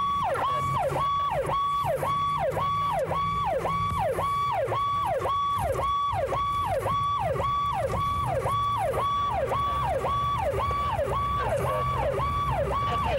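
Police car siren cycling fast, about two cycles a second, each one holding high and then dropping sharply, with the patrol car's engine running underneath. It is heard from inside the car's cabin while the car drives to a call.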